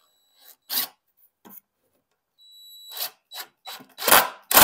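DeWalt cordless impact driver sinking a small 1-inch wood screw in short, gentle trigger pulses, the screw grinding into the wood. A few brief bursts come first, then the motor's thin whine holds for about a second before a run of louder bursts near the end.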